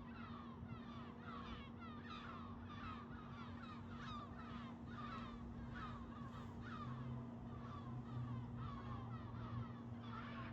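Train running with a repeated high squeal, a short falling chirp two or three times a second, over a steady hum. A lower engine tone grows about seven seconds in.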